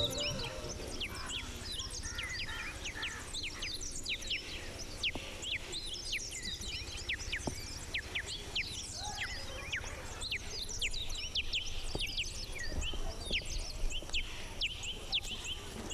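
Many birds chirping in a dense chorus of short, high, quickly falling notes, over a low outdoor rumble.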